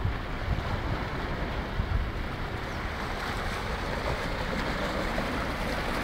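Steady rushing of wind and choppy water, with gusts buffeting the microphone in uneven low thumps.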